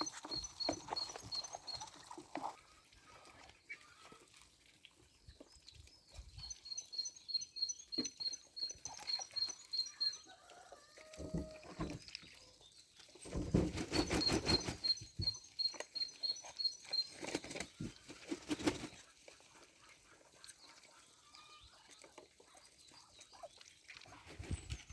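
A small songbird's high trill of evenly spaced notes, repeated in three runs of two to three seconds each, over a backyard of hens and ducks, with loud bursts of rustling or flapping noise about halfway through.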